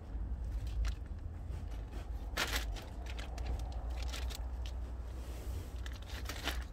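Thin plastic sheeting crinkling as kittens scramble about under it: a few short crackles, the loudest about two and a half seconds in and another cluster near the end, over a low steady rumble.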